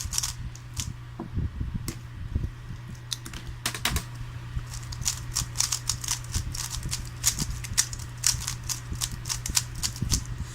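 3x3 Rubik's cube being turned by hand, its plastic layers clicking in quick runs of turns with short pauses between.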